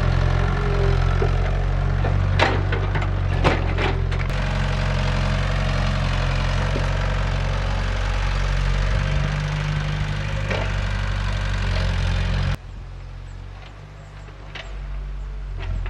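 Crawler mini excavator's diesel engine running steadily as it digs, with a few sharp knocks of stones and the bucket about two to four seconds in. Near the end the engine sound drops abruptly to a fainter, more distant drone.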